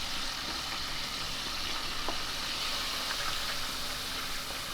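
Breaded chicken frying in hot oil: a steady sizzle with small scattered crackles.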